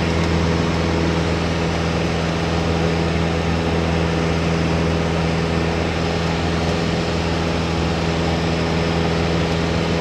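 Piper Tomahawk's four-cylinder Lycoming O-235 engine and propeller running at a steady, unchanging drone.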